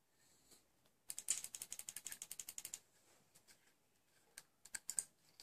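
Metal parts of a Kayfun clone atomizer being unscrewed by hand to take off the chimney: a fast, even run of small metal clicks, about fifteen a second, for under two seconds, then a few separate clicks near the end.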